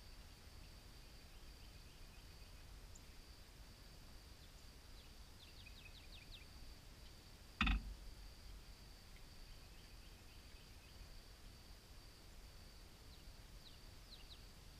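Quiet rural ambience: a steady high-pitched insect drone with a few faint bird chirps over a low rumble. A single sharp knock about halfway through is the loudest sound.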